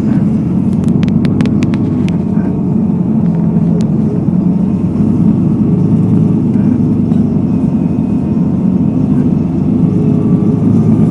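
Steady low rumble of a motor vehicle or road traffic, with a quick run of sharp clicks about a second in.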